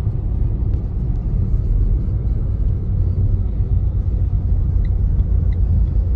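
Steady low road rumble of a car driving, heard from inside the cabin. Faint, evenly spaced ticks begin near the end.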